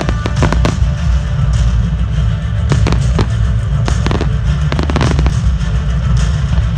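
Fireworks display: aerial shells bursting in a rapid, uneven string of bangs and crackles, over a constant low rumble, with music playing underneath.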